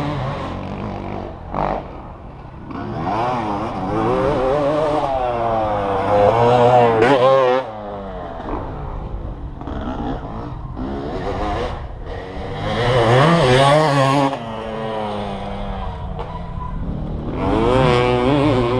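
Off-road motorcycle engines revving and dropping back, their pitch rising and falling, loudest in three spells: a few seconds in, just past the middle, and near the end.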